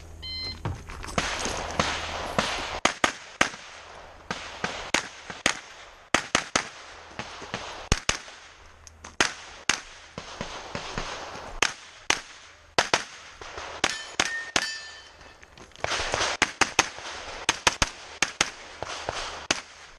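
Shot-timer beep, then a pistol-caliber carbine firing rapid strings of shots, with short pauses between strings as the shooter moves. Steel targets ring when hit.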